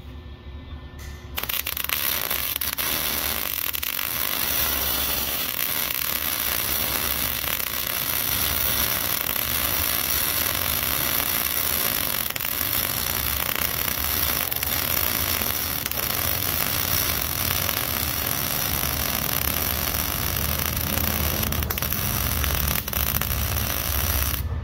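Welding arc crackling steadily as a bead is laid around the joint between an exhaust flex pipe and the exhaust pipe. The crackle starts about a second in and holds steady without a break.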